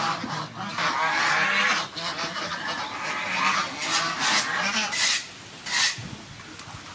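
Domestic fowl calling over and over, loudest in the first half, with a few short sharp noises near the end.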